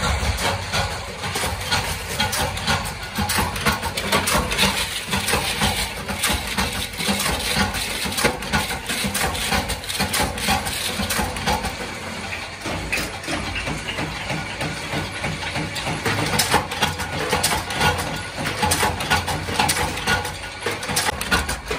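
Mechanical power press stamping metal screw shells: a steady low machine drone under dense, rapid metallic clatter and clinks.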